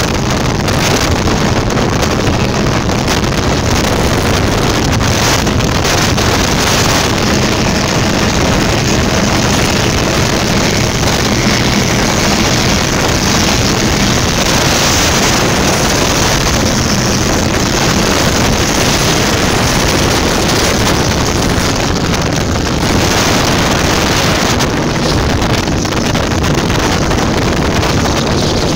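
Powerboats running side by side at high speed, one of them a Cigarette 38 Top Gun offshore boat: a steady engine drone under the rush of water and spray, with heavy wind noise on the microphone.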